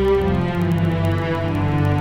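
Background music of slow, held chords, the chord changing just after it begins.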